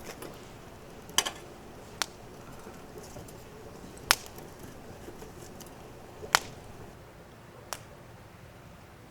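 Five sharp cracks at irregular intervals, the loudest about four and six seconds in, over a low steady background.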